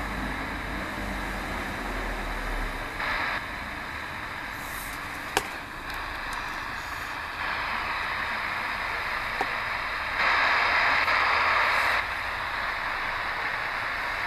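Shortwave receiver (DEGEN DE1103) in SSB mode tuned to 10635 kHz, giving steady static hiss and noise. The noise grows louder about halfway through and louder still for a couple of seconds near the end, with a sharp click about five seconds in.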